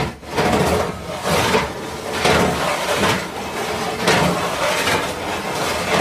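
Sheets of metal sliding and scraping over one another in repeated rough strokes, about one a second, with a faint metallic ring under the scraping.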